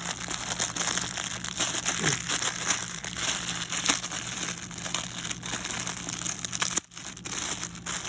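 Plastic toy packaging crinkling and crackling as it is handled and opened, with many small clicks and rustles and a brief pause about seven seconds in.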